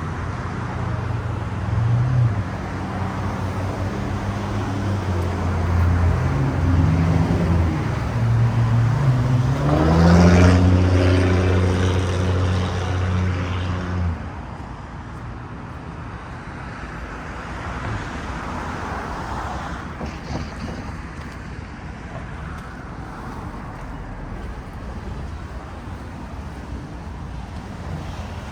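City street traffic: a nearby vehicle's engine hums loudly and rises in pitch as it speeds up about ten seconds in. Around halfway through the sound drops abruptly to quieter, steadier traffic.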